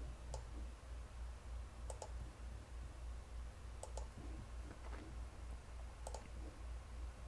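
Computer mouse clicking, a few sharp clicks mostly in quick pairs about every two seconds, over a faint low hum.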